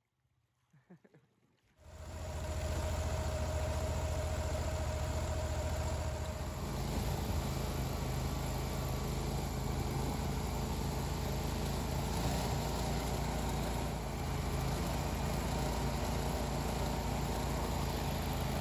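Air-cooled mud motor on a small duck boat running steadily under way. It starts about two seconds in, after near silence.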